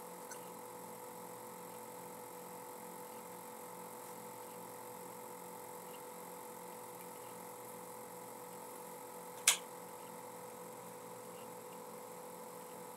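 Low steady electrical hum and whine in the background, with one sharp click about nine and a half seconds in.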